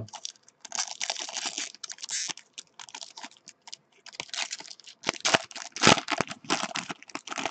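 Foil wrapper of a trading-card pack being torn open and crinkled by hand: irregular bursts of crackling and rustling.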